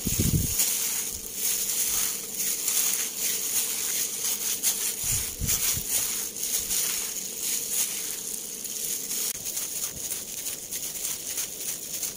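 Gloved hand kneading and squeezing raw ground pork and beef burger mix in a stainless steel bowl: irregular wet squelching and plastic-glove rustling, with a few dull knocks against the bowl near the start and about five seconds in.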